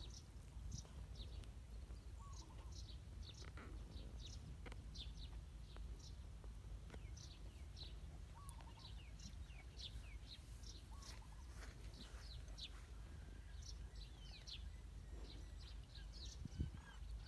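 Faint bird chirps: many short, high calls scattered throughout, over a low steady rumble.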